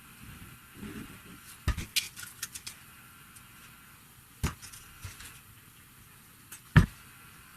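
A series of sharp knocks and clicks from objects being handled. There is a quick run of clicks about two seconds in, a single knock halfway through, and the loudest knock near the end.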